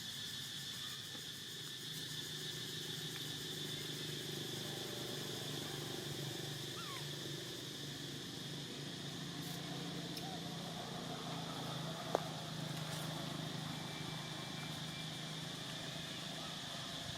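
Steady outdoor insect drone, one constant high-pitched tone, over a low hum, with a single sharp click about twelve seconds in.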